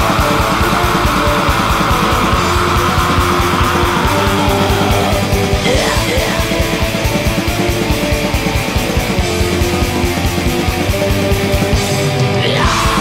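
Black metal instrumental passage: distorted electric guitars over fast, dense drumming, with a high held line over the first four seconds or so that then fades out.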